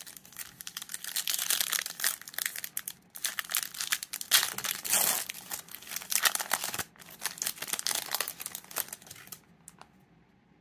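Shiny foil wrapper of a Topps baseball card pack being crinkled and torn open by hand: a dense, uneven crackling that stops about a second before the end.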